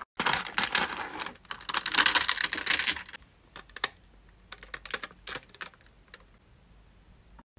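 Clear double-sided adhesive tape being handled and peeled from its roll: a dense sticky crackle for about three seconds, then scattered clicks and crackles as the strand is pulled away.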